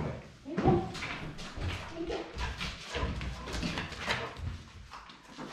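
A golden retriever whining, with short high whimpers about a second in and again about two seconds in, among scattered clicks and knocks of its movement.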